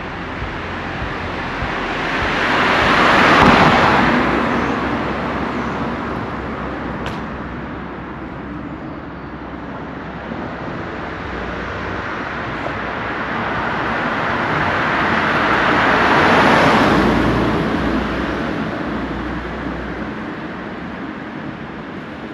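Two cars passing one after the other, the road noise of each swelling up and fading away: the first a few seconds in, the second about two-thirds of the way through.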